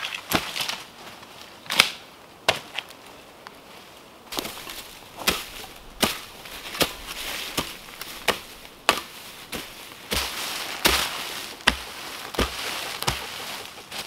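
A hoe chopping into forest soil: sharp strikes, a few spaced apart at first, then a steady run of about three every two seconds, with soil and leaf litter scraping between blows.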